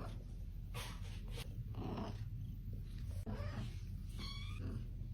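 Domestic cat chirping: several short, soft chirps a second or so apart over a low steady hum, the chirp that takes the place of a meow for this cat.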